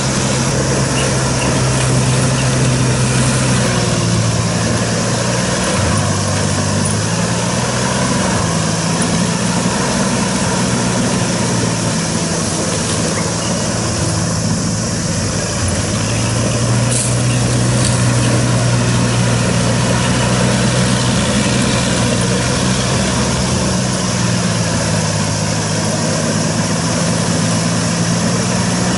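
Kaneko tracked hammer-knife mower running steadily as it mows through tall weeds, a loud engine drone whose pitch dips briefly about six seconds in and shifts slightly a few times after.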